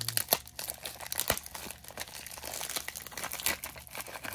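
Packaging being unwrapped by hand: wrapping crinkling and tearing in a quick, irregular run of crackles.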